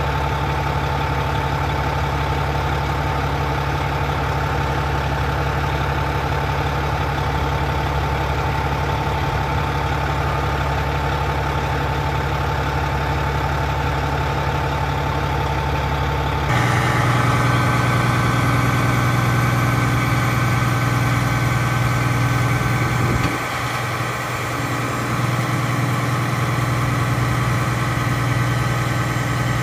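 Detroit Diesel Series 60 inline-six diesel of an American LaFrance aerial tower truck running steadily at idle, with a steady whine over the engine hum. About halfway through the sound shifts abruptly to a different hum and whine, and the front hydraulic stabilizer jacks then lift off the ground.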